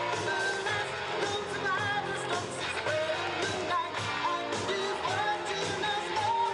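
Background music: a pop-rock song with a singing voice over a steady beat.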